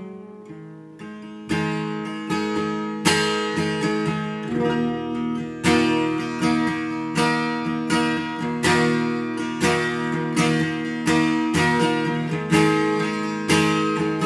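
Steel-string acoustic guitar with a capo, played solo with no singing. A few soft picked notes die away, then from about a second and a half in chords are strummed in a steady rhythm, louder from about three seconds in.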